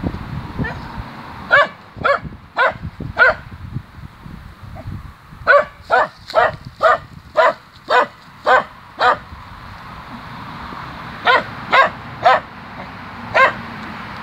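Small Scottish terrier barking in short, sharp yaps: a run of four, a quicker run of about eight at two a second, then four more, with a low rustle of dry stalks underneath.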